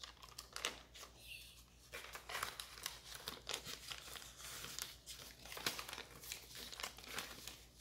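Paper wrapper crinkling and tearing as hands unwrap a bar of white baking chocolate: a steady run of quick, irregular crackles.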